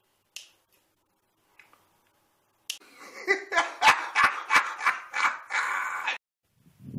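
A sharp click of scissors snapping shut about half a second in, then a man laughing loudly in quick, choppy pulses for about three and a half seconds before stopping abruptly.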